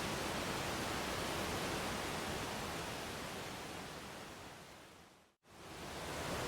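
Waterfall rushing steadily, fading down to silence a little over five seconds in and quickly swelling back up.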